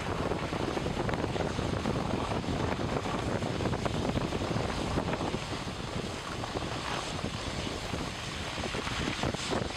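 Wind rushing over the microphone of a camera moving at skiing speed, mixed with the hiss of skis sliding over snow: a loud, steady rushing noise with a rumbling low end.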